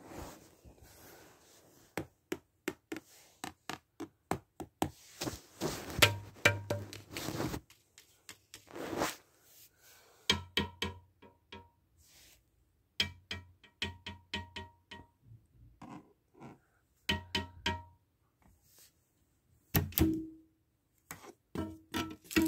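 A rapid, uneven series of knocks and thunks, several with a short ringing tone, coming in clusters with brief pauses between them.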